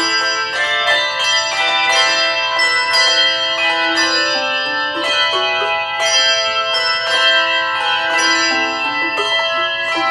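Handbell choir playing a melody: bell after bell struck in a steady run of notes, each one ringing on under the next.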